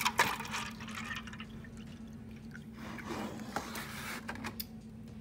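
Distilled water poured into a disposable cup, in two stretches, with a couple of sharp knocks at the very start.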